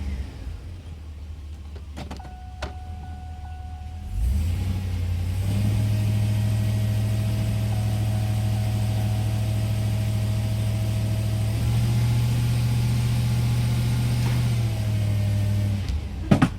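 A 2003 GM 2500HD pickup's 6.0-litre gasoline V8, an engine with a misfire, idles and is then brought up to a raised, steady speed for about ten seconds, stepping up once near the middle before dropping back. A couple of clicks come early, and two sharp knocks come near the end.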